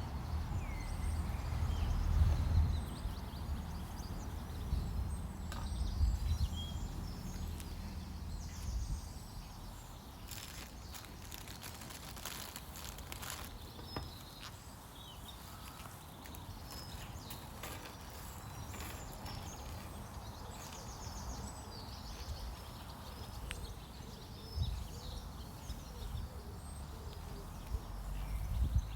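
Outdoor nature ambience: scattered bird chirps over a steady background, with a low rumble that is heaviest in the first several seconds and again near the end.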